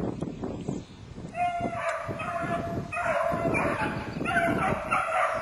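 Hunting beagles baying as they trail a rabbit: long drawn-out notes that start a little over a second in and go on with only short breaks.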